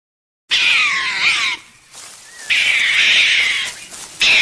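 An animal calling: three loud calls of about a second each, the first beginning about half a second in, with short gaps between.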